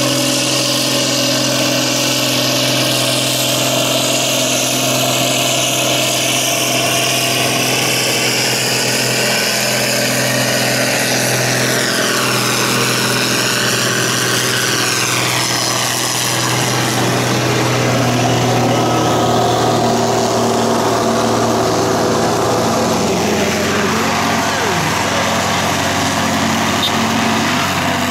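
International (Case IH) tractor's diesel engine running flat out under heavy load as it drags a tractor-pull sled. A high whistle rises and falls over the steady engine note in the middle of the run.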